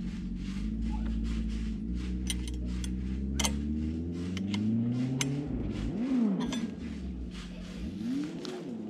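Irregular metal clicks of a 13 mm wrench tightening the clamp bolts of a chainsaw mill attachment, over a steady low engine-like drone whose pitch slowly shifts.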